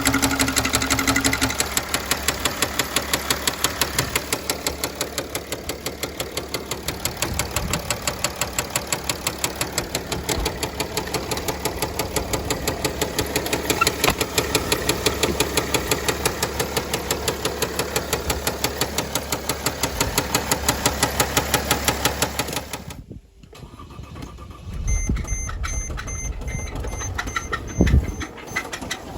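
Mercedes OM642 3.0-litre V6 diesel engine running with a loud, rhythmic knock that the owner took for a rod knock, though he later wonders whether it came from the belt tensioner or another front accessory. About 23 seconds in, the engine stops abruptly, and faint repeating electronic beeps follow.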